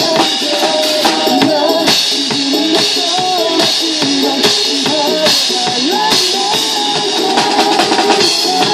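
Acoustic drum kit played along to a song, with kick drum, snare and cymbal hits over recorded backing music whose melody rises and falls.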